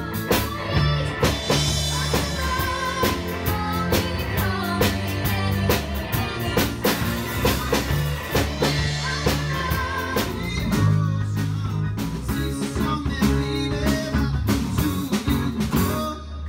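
Live rock band playing an 1980s song: drum kit keeping a steady beat, electric bass, keyboards and guitar, with women singing the melody with vibrato.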